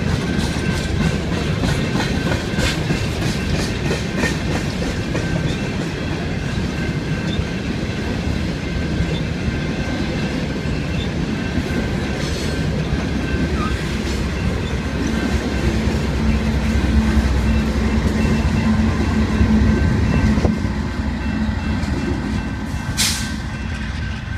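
BNSF coal train rolling past: a steady rumble of the coal cars with clicks of wheels over the rail joints. A steady low drone swells about two-thirds through, then the rumble drops off suddenly as the train clears, followed by a short hiss near the end.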